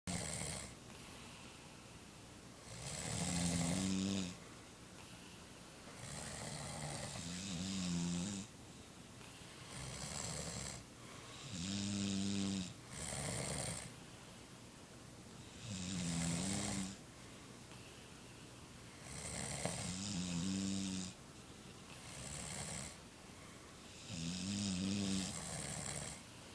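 Two men snoring in their sleep, a loud rattly snore coming every two to four seconds.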